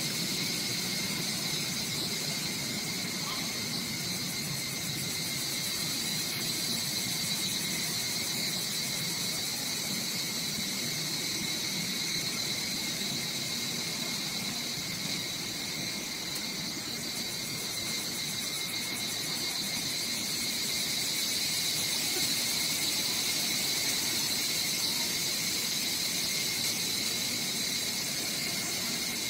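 Steady outdoor insect chorus: a continuous high-pitched drone with a fainter, lower steady tone beneath it.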